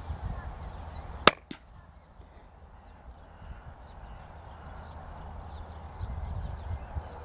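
A single suppressed shot from a CZ452 .22LR rimfire rifle firing a subsonic round: one sharp crack about a second in, followed about a fifth of a second later by a second, fainter crack.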